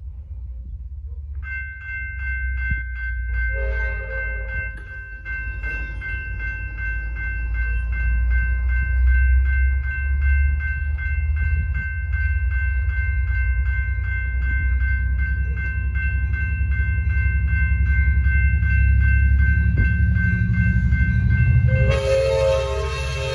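Railroad crossing bells start about a second and a half in and ring rapidly and steadily as the crossing gates come down, over a low rumble that grows louder. Near the end an approaching Amtrak EMD F59PHI locomotive sounds its horn.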